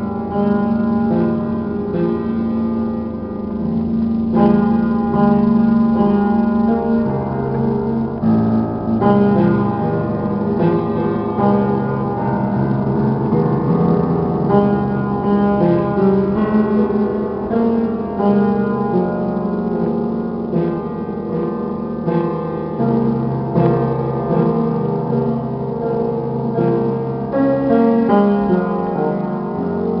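Piano playing a continuous passage of overlapping notes and chords.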